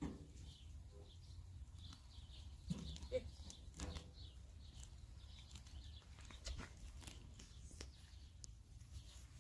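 Faint sounds of a donkey grazing and shifting on grass: scattered soft clicks and knocks over a low steady rumble.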